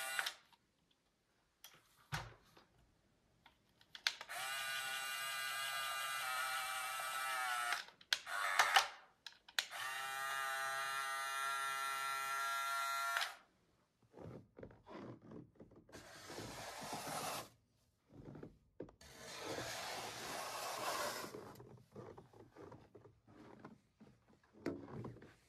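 Small electric gear motors of a Huina RC toy snow plow truck whining as the plow blade is raised, lowered and angled: two steady runs of about four and three seconds, then shorter, rougher whirring bursts.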